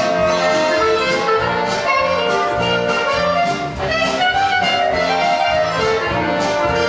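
Quickstep dance music, a band with brass playing with a brisk, steady beat.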